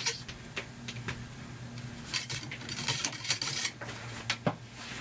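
Cleaning rod pushing a dry patch through a 30-30 lever-action rifle's barrel to wipe out excess oil: irregular light metallic clicks and scrapes.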